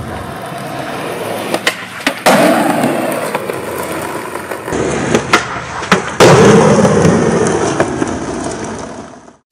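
Skateboard wheels rolling over concrete, with sharp wooden clacks of the board popping and landing. A loud landing about two seconds in and another about six seconds in are each followed by louder wheel roll. The sound fades and cuts off near the end.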